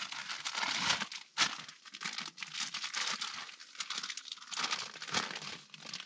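Close, irregular crinkling and rustling of plastic or nylon material being handled.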